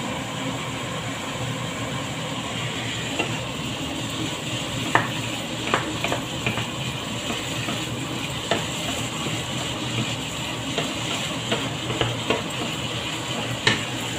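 Diced ham sizzling steadily in a nonstick frying pan, stirred with a wooden spatula that knocks and scrapes against the pan every so often.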